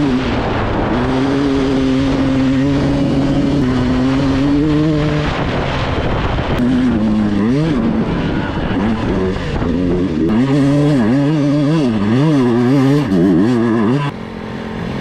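Dirt bike engine running under the rider, holding a fairly steady pitch for the first few seconds. Over the second half it revs up and down quickly and repeatedly as the throttle is worked on the trail, and it drops back shortly before the end.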